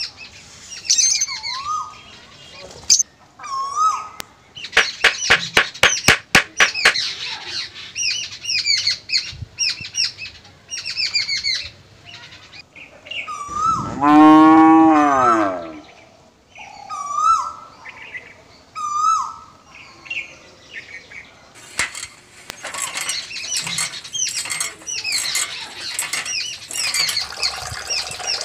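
A cow moos once, a long call about halfway through and the loudest sound, over birds chirping again and again. Early on a quick run of clicks is heard, and in the last several seconds a steady rush of running water comes in.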